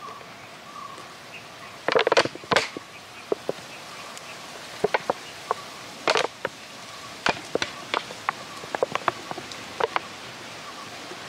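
Thin plastic soda bottle crinkling and popping as it is squeezed and released by hand, pumping air and smoke in through a lit cigarette fixed in its cap. Louder crackles come about two seconds in and again around six seconds, with scattered clicks between.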